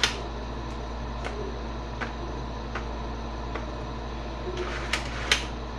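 Light plastic taps and clicks from a children's magnetic drawing board being handled, roughly every two-thirds of a second, with two louder clicks near the end, over a steady low hum.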